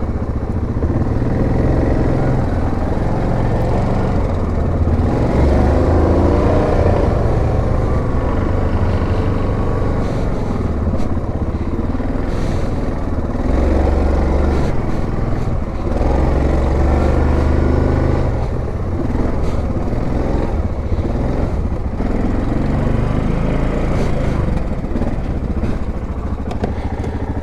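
Yamaha Grizzly 700 ATV's single-cylinder engine running as it is ridden, its pitch rising and falling with the throttle several times.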